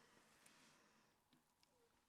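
Near silence: a gap in the narration with no audible sound.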